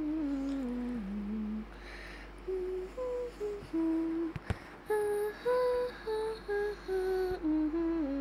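A slow tune hummed one held note at a time, stepping up and down in pitch, with a short break about two seconds in.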